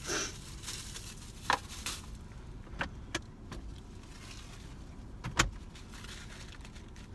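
Rustling and light clicking as a takeout bag and its paper-wrapped utensils are handled in a search for a fork, with a few sharp clicks, the loudest about five seconds in.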